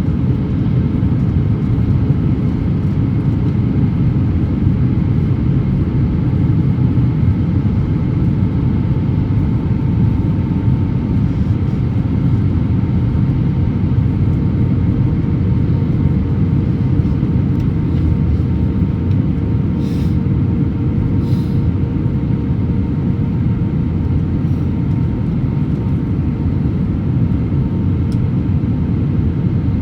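Steady cabin noise inside an Airbus A321-200 in flight: a deep, even rumble with a few faint constant tones above it. There are two brief clicks about twenty seconds in.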